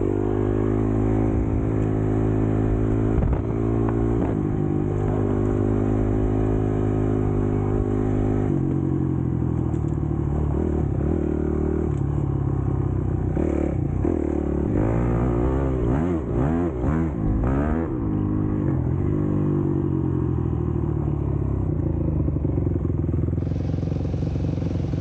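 Dirt bike engine running at a steady pitch while riding, then the revs rise and fall quickly several times a little past the middle as the throttle is worked.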